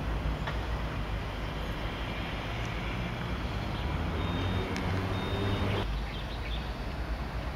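Steady low rumble of outdoor background noise like distant traffic, with a few short high peeps around the middle.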